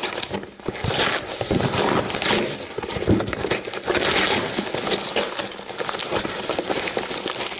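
Cardboard shipping box being ripped open by hand: repeated tearing of cardboard and crinkling of the paper and wrapping inside.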